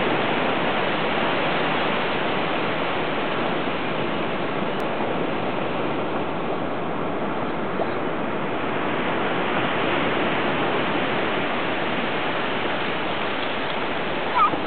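Ocean surf washing steadily on a sandy beach.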